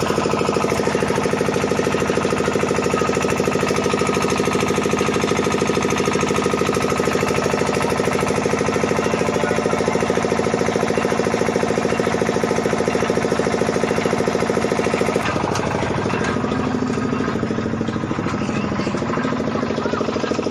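Engine driving a sugarcane crusher, running steadily with a fast even beat. About fifteen seconds in its note shifts and it gets slightly quieter.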